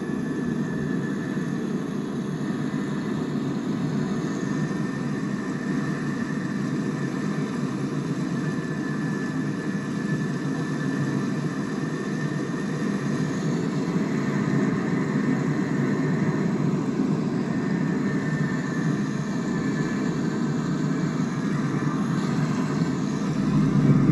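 Boeing 777-300ER's GE90 jet engines running at takeoff power during the takeoff roll, heard as a steady deep rumble with a faint whine above it. It grows louder toward the end.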